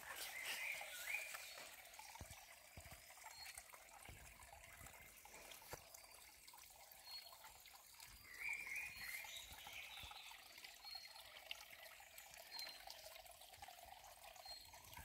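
Faint trickle of a shallow stream. A short animal call comes twice, near the start and a little past halfway, and soft high chirps recur every second or two.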